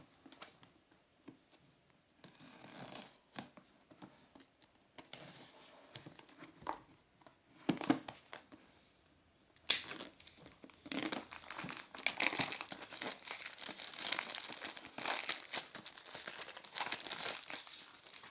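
Packaging on a small product box being torn open and crinkled by hand: scattered rustles and light handling knocks at first, then from about ten seconds in, continuous crinkling and tearing.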